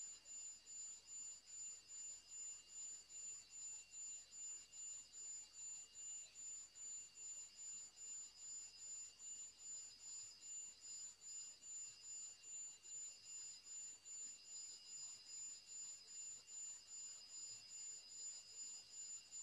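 Faint, steady, high-pitched electronic tones, several pitches at once, pulsing evenly a few times a second.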